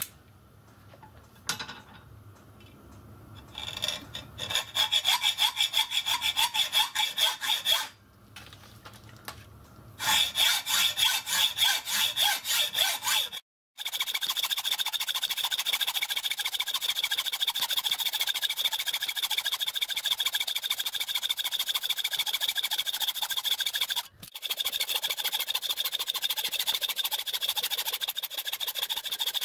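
Hand hacksaw cutting through a block of cast iron clamped in a bench vice: a rasping, back-and-forth stroke sound, about three strokes a second at first. After a few seconds of quiet handling the sawing starts, pauses briefly twice, and then runs on in quicker, closer-packed strokes.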